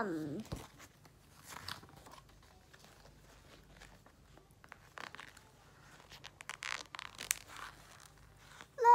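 Paper pages of a thin paperback picture book being turned and handled, rustling and crinkling in short bursts that come more often in the second half.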